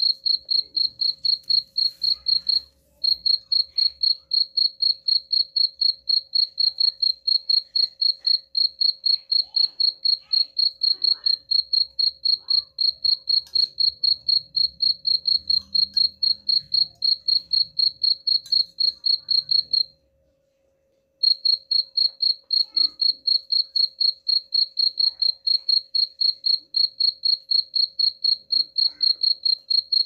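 Cricket chirping: a steady train of high-pitched pulses, about four a second, broken by a silent gap of about a second two-thirds of the way through.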